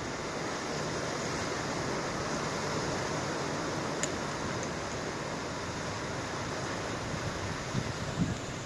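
Ocean waves washing in a steady wash of surf noise, with wind. A few brief low bumps come near the end.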